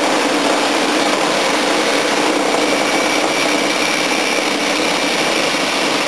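Reciprocating saw (Sawzall) running steadily as its blade cuts through an air-conditioner radiator's aluminium fins and copper tubing.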